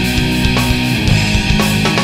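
Hardcore band's recording: distorted electric guitars and drums playing a heavy, dense passage.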